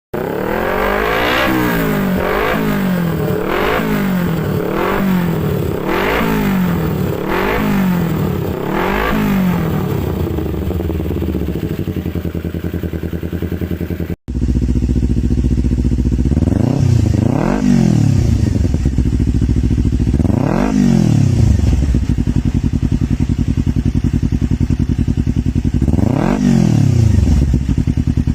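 Kawasaki Ninja 250 with an aftermarket racing exhaust, revved while standing. In the first half the throttle is blipped about eight times in quick succession, each a short rise and fall in pitch, before the engine settles to idle. After a cut it idles steadily with three separate revs spread through the rest.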